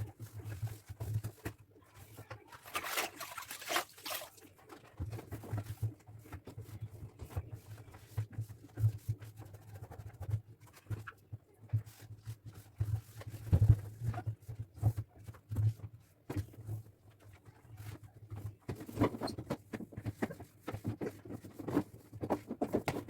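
Irregular rubbing, small knocks and taps of a cloth being wiped over refrigerator shelves and surfaces, with a louder stretch of scrubbing about three seconds in.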